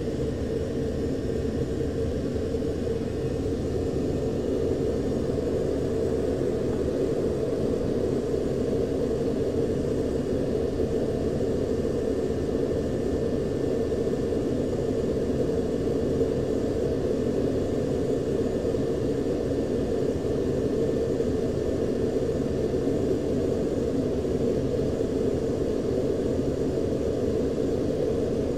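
Steady low rumble inside a U-2 cockpit in flight: engine and airflow noise picked up through the canopy, even and unchanging.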